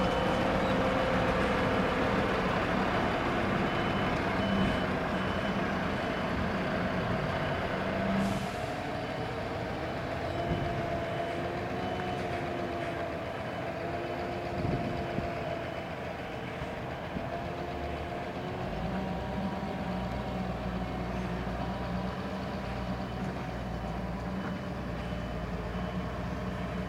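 Scania 6×4 tractor unit reversing slowly with a heavy multi-axle trailer: its diesel engine runs steadily at low revs while a reversing alarm beeps in an even rhythm. A brief hiss comes about eight seconds in.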